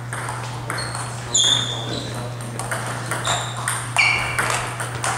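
Table tennis rally: the ball clicking back and forth off the Donic table and the players' paddles, a few hits a second, some hits ringing with a short high ping.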